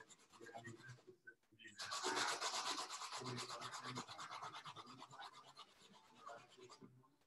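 Peeled malanga root being grated on a metal box grater: fast, even rasping strokes, pausing briefly about a second in and loudest just after they resume.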